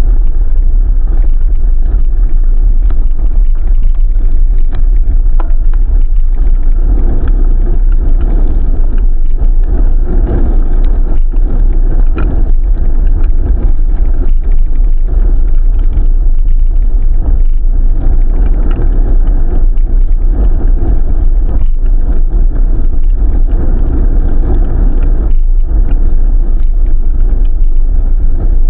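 Loud, steady low rumble with scattered small crackles: wind and motion noise buffeting a moving microphone.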